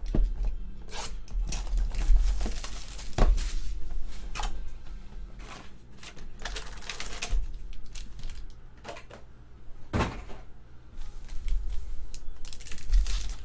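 Hands handling a cardboard trading-card hobby box and pulling out its wrapped card packs: irregular rustling and scraping with scattered clicks and knocks, the sharpest about three seconds in and again about ten seconds in.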